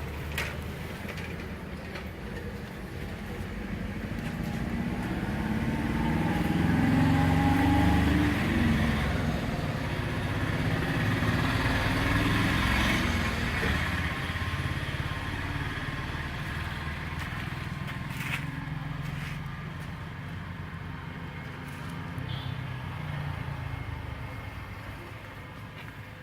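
Engine noise of road traffic going past, swelling to a peak several seconds in and then easing off, with a few isolated sharp clicks.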